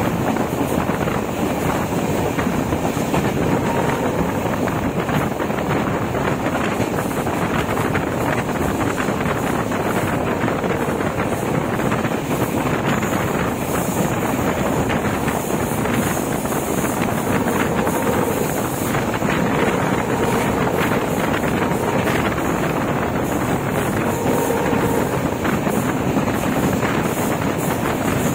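Passenger train in motion: a steady running noise of the LHB-coached Duronto Express, with wind rushing over the microphone.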